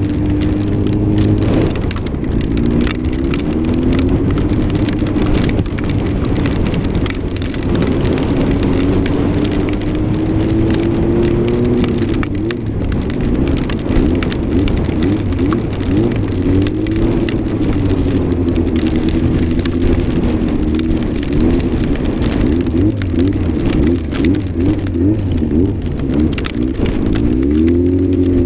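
Yamaha R6 motorcycle's inline-four engine running at low, changing revs, its pitch rising and falling and wavering quickly with small throttle changes in the later part. A steady hiss of wind and falling snow or rain runs underneath.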